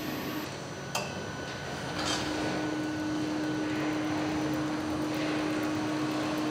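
Vehicle assembly-line factory noise: a steady machine hum over a broad din, with a sharp click about a second in and a short hiss about two seconds in.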